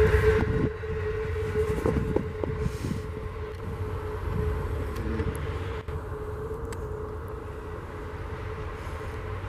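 Amtrak Vermonter passenger cars rolling past and away: a loud rumble of wheels on rail that drops sharply about half a second in, then a softer receding rumble with a few clicks, over a steady hum.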